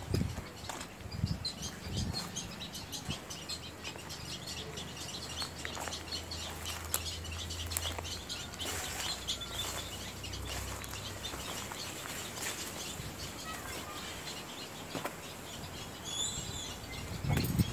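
Small birds chirping and twittering in the background, with a short high call near the end, over a low steady hum through the middle.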